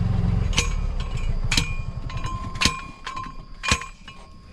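A small vehicle's engine running as it moves off, with a sharp clink about once a second; the engine sound drops away about three seconds in.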